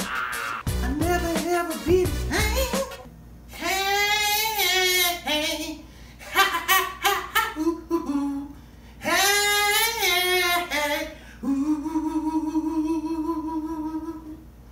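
A short stretch of music with a beat, then a man singing long wordless notes with a heavy vibrato, ending on one long held note.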